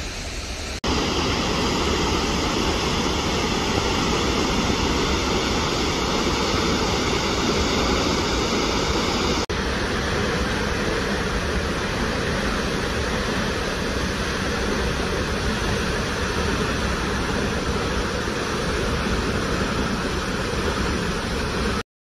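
Steady rushing of a tall waterfall dropping off a cliff into a pool, an even wash of water noise. It steps up louder about a second in, changes abruptly at a cut about nine and a half seconds in, and stops suddenly just before the end.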